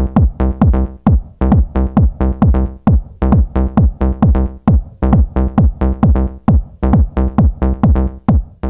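Electronic dance music intro with a fast, steady kick-drum beat and synth tones.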